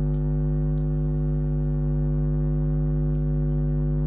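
Steady electrical mains hum with a stack of overtones and a few faint, short high clicks.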